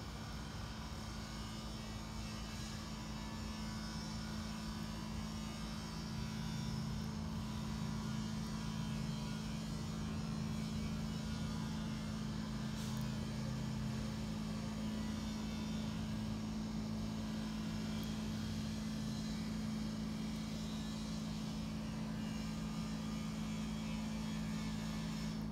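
Steady low mechanical hum, a little louder from about six seconds in.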